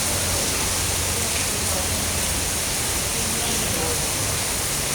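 Heavy tropical rain pouring down, a steady even hiss, with faint voices in the background.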